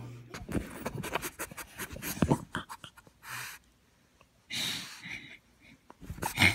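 A pug breathing noisily in short sniffing puffs, with scattered clicks between them.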